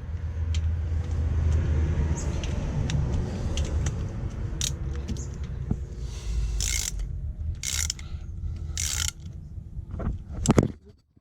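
Hand work on an engine block: a steady low rumble of handling noise with scattered clicks, three short hissing bursts about a second apart in the middle, and a sharp knock near the end.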